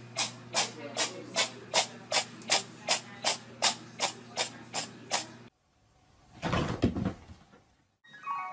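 A steady run of sharp clicks, about three a second, over a low hum, stopping about five and a half seconds in; then a brief rushing noise lasting about a second.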